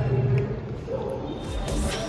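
Background music, with brighter notes of a new passage coming in near the end.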